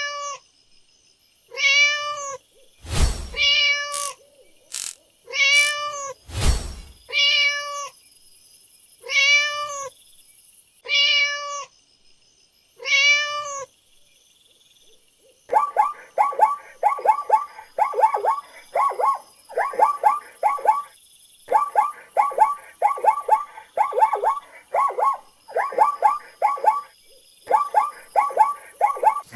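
A cat meowing repeatedly for the first half, about seven separate meows a second or two apart, with two sharp knocks near the third and sixth seconds. From about halfway on comes a different run of rapid, high-pitched chirping calls in quick clusters, repeating about once a second.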